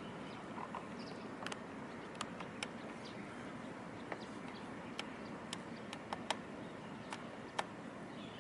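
Steady outdoor background hiss with about a dozen short, sharp ticks scattered at irregular intervals.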